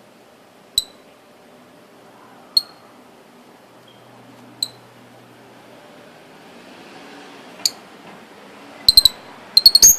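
Lovebird giving short, sharp, high-pitched chirps: single chirps every couple of seconds, then quick runs of several chirps near the end.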